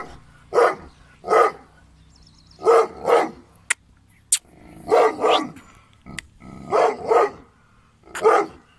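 Gull Dong, a Pakistani bulldog, barking repeatedly: about nine loud barks, mostly in quick pairs, with short pauses between them.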